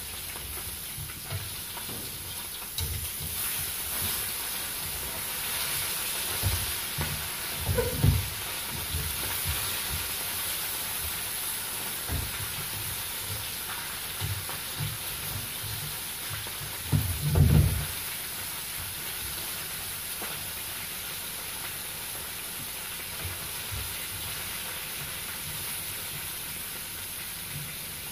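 Breaded fish deep-frying in hot oil: a steady sizzle, with two low thumps about eight seconds in and again near seventeen seconds.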